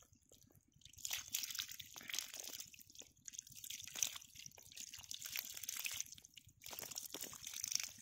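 Water trickling out over mud with many small tengra catfish wriggling and splashing in the shallow flow: irregular wet patters and splashes, starting about a second in.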